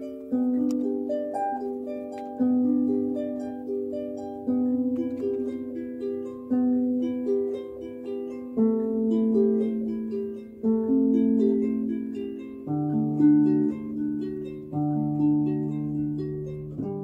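Gentle instrumental background music, with a new chord struck about every two seconds and its notes fading out between.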